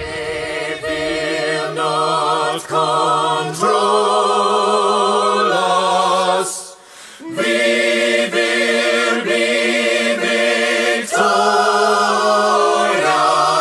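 Soundtrack music of held, wordless choir chords that change every second or two, with a short break about seven seconds in.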